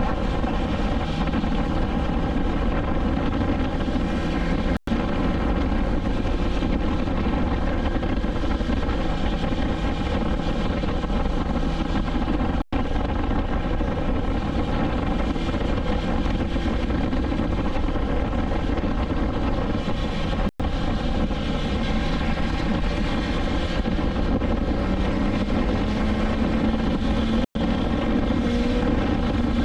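Motorcycle's inline-four engine running steadily at cruise. The drone is cut by four brief dropouts, and a low note rises slightly near the end.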